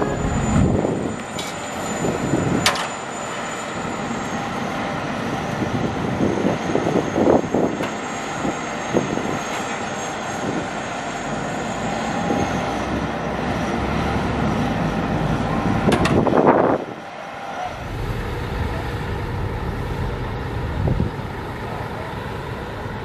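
Heavy construction machinery's engine running steadily, a dense rumble with a thin high whine over it. The sound changes abruptly about two-thirds of the way through.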